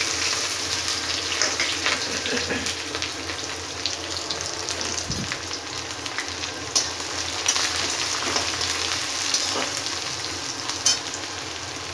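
Chopped onion and green chillies sizzling in hot oil in an aluminium kadhai, loudest just after they go in and then settling to a steady frying hiss as the onion cooks toward brown. Scattered light clicks and scrapes come from a steel spatula stirring in the pan.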